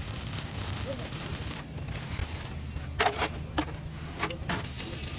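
TIG welding arc hissing, cutting off about a second and a half in, then three or four sharp knocks over a steady low hum.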